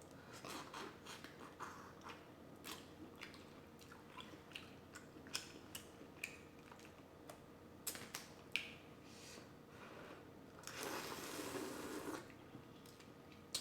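Close-up chewing of seafood boil, with short, scattered wet mouth clicks and smacks. About three-quarters of the way through, a denser, louder stretch of noise lasts about a second and a half.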